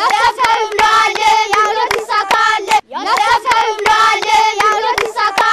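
A group of boys singing a short chant together to steady hand claps; the phrase is sung twice, with a brief break in the middle.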